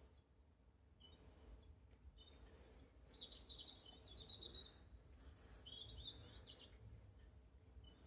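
Small songbird in the garden trees singing: a few short high chirps, then two runs of quick, high twittering in the middle, over a faint low rumble.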